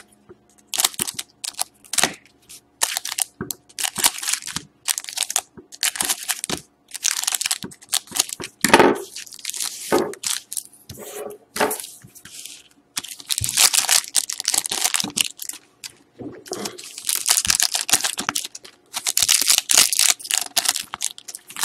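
Foil trading-card pack wrappers (Panini Rookie Anthology hockey packs) being crinkled and torn open by hand: irregular bursts of sharp crackling rustle with short pauses between them, loudest about nine seconds in.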